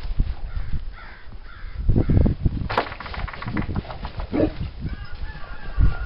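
A dog barking in short repeated calls, with a low rumble of wind on the microphone and one sharp crack a little under three seconds in.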